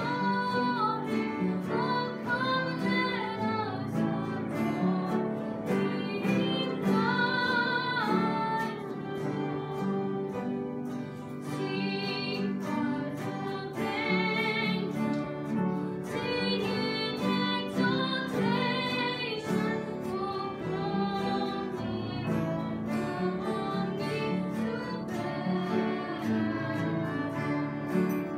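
Young women singing a Christmas hymn with upright piano accompaniment, the voices holding long notes with vibrato over steady chords.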